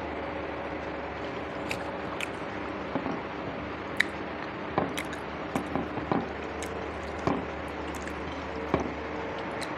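Close-miked eating: chewing, with about ten short wet mouth clicks and smacks, the sharpest about four seconds in, over a steady background hum.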